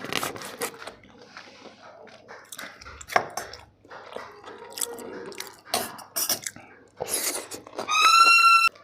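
Close-up eating sounds of chicken biryani being chewed: scattered wet mouth clicks and smacks. Near the end a short, loud, high-pitched squeak-like tone cuts in for under a second.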